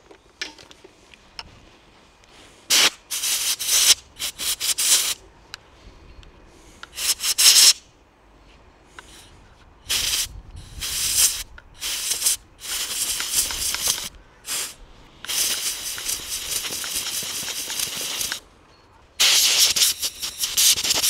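Compressed air from a blow gun blasting through a motorcycle air filter to clear sand out of it: a series of short hissing blasts, turning into longer ones about fifteen seconds in.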